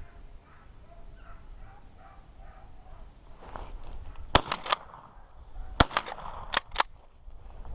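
Beagles baying on a rabbit's trail, then several sharp gunshot reports in quick succession from about four and a half seconds in, with a further shot about a second later and two more soon after.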